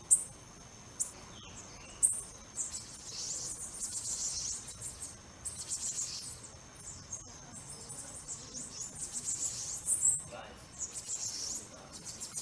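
High-pitched chirping in irregular bursts, with a few sharp clicks, the loudest just after the start and about two seconds in.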